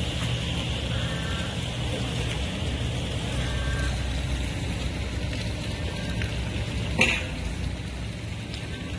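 Steady rain falling on floodwater, a constant hiss over a low rumble, with one sharp click about seven seconds in.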